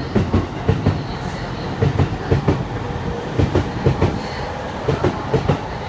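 Electric commuter train running past, its wheels clicking over the rail joints in repeated groups of clicks about once a second over a steady rolling rumble.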